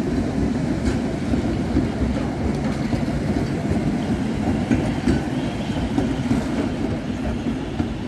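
PCC tram running past on street track and pulling away: a steady low rumble of steel wheels on the rails, with a few faint clicks.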